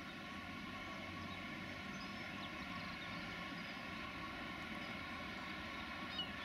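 Diesel freight locomotive hauling hopper wagons, approaching slowly: a steady engine drone with a hum of fixed tones, growing a little louder.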